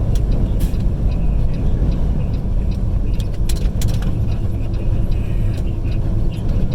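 Steady road and wind noise inside a vehicle driving on the highway in high winds: a heavy low rumble with a few faint clicks.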